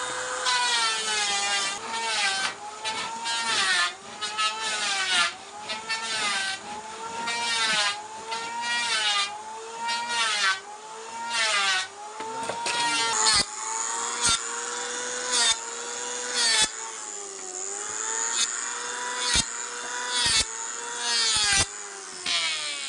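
Handheld electric power tool working the wood of a cricket bat, with the motor dipping in pitch and recovering about once a second as each stroke loads it and the rasp of wood being cut over it. Several sharp clicks come in the second half.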